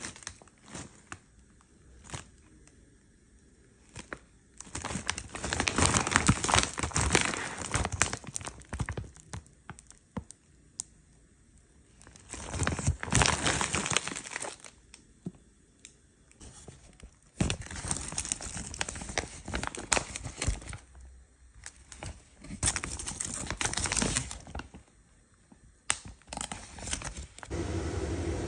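Plastic bag of frozen potstickers crinkling and rustling in repeated bursts of a few seconds as it is handled and turned over, with quiet gaps between.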